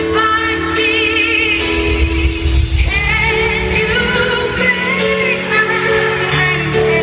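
Live pop ballad: a female singer holding long, wavering notes with vibrato over a sustained band accompaniment in the low range.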